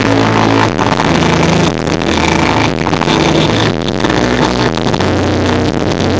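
Loud live instrumental post-rock: a band's distorted electric guitars, bass and drums playing a dense wall of sound over held low notes that change about once a second.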